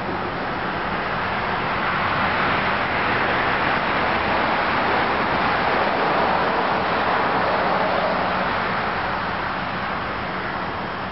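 A car passing: its road and engine noise swells over a few seconds and fades away again, over a steady low hum.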